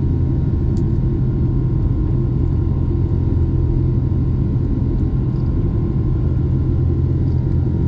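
Steady engine and airflow rumble inside the cabin of a Boeing 777-300 with Pratt & Whitney engines, heard from a window seat just ahead of the engine during takeoff or climb, with a faint steady whine above it.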